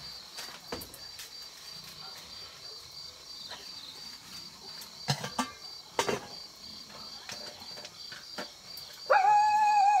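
Insects chirping in a steady, faint high pulse over rural background, with a few sharp clicks around the middle. Near the end a much louder held tone with overtones sets in suddenly.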